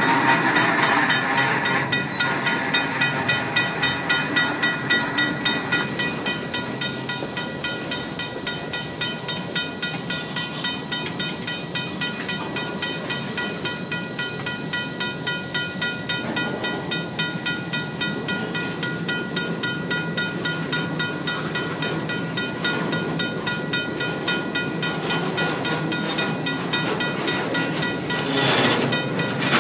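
A RACO mechanical crossing bell ringing in a rapid, steady rhythm while the crossing is occupied, over the rumble and clatter of freight hopper cars rolling past. A brief louder rush of noise comes near the end.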